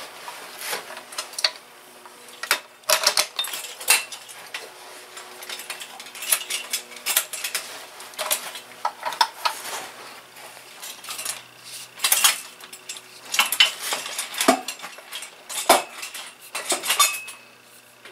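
Metal hand tools and engine parts clinking and clattering in irregular light clicks, with a few louder clanks, while crankshaft end play is checked with a feeler gauge.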